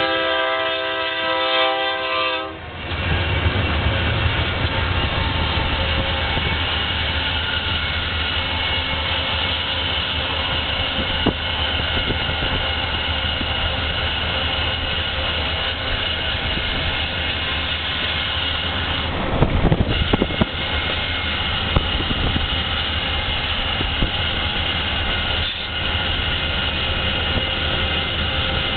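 Chicago & North Western 8646 diesel locomotive blowing its horn, a chord of several tones, for about two and a half seconds. After that its engine and wheels run with a steady low rumble, heard from a vehicle pacing alongside. About two-thirds of the way through there is a brief louder rush of noise.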